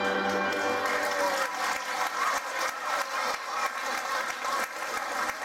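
The final held chord of a song by a children's choir with keyboard ends about half a second in. Then an audience of schoolchildren applauds, with children's voices calling out through the clapping.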